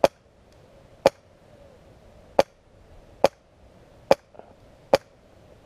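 HPA-powered airsoft SR-25 DMR firing six single shots, about one a second, while aimed at an opposing player.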